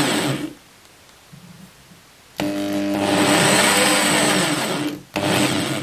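Electric drill motor running in bursts with a steady pitch, its bit boring through a small copper nozzle held against it by hand. It stops about half a second in, runs again for about two and a half seconds, stops, and starts once more near the end.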